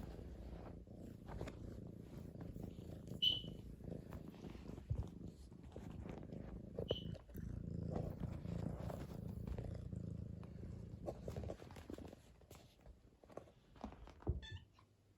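Domestic cat purring close by, a steady low rumble that stops about three-quarters of the way through, followed by a few light clicks near the end.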